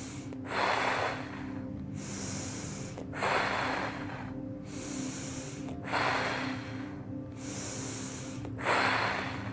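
A woman's deep, forceful paced breathing, four full breath cycles about one every 2.7 seconds. Each is a hissing inhale through the nose followed by a louder exhale blown out through pursed lips. Soft background music with sustained tones runs underneath.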